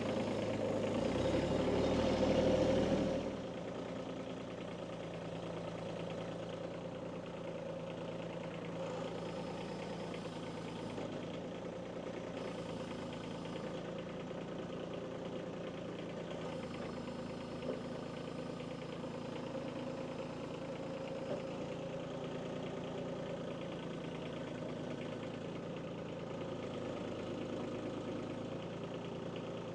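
Kubota B2301 compact tractor's three-cylinder diesel engine running. It is louder for about the first three seconds, then settles to a steady idle.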